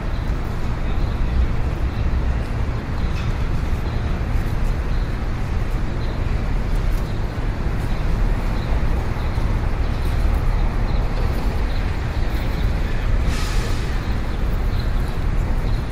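Steady outdoor background noise: a ragged low rumble with a hiss over it, with a brief louder hiss about thirteen seconds in.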